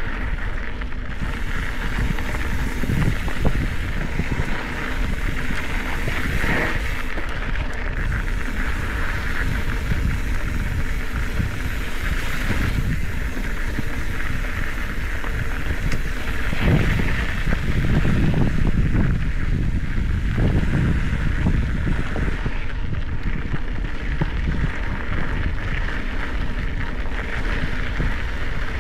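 Wind noise buffeting the microphone over a Specialized Epic 8 Evo mountain bike rolling along a dry dirt singletrack, with steady tyre and trail noise throughout.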